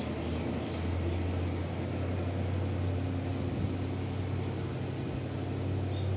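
Diesel train engine running, a steady low drone under a broad rushing noise.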